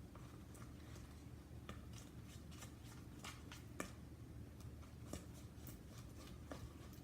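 A mixing tool stirring glue and laundry detergent in a bowl for slime: faint, irregular clicks and scrapes of the tool against the bowl, over a low steady hum.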